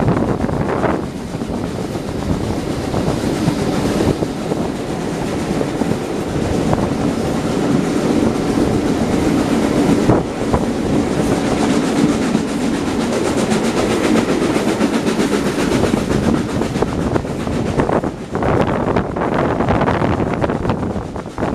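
Steam-hauled passenger train running along the line, heard from an open carriage window: the carriage wheels run steadily on the rails, with wind at the window.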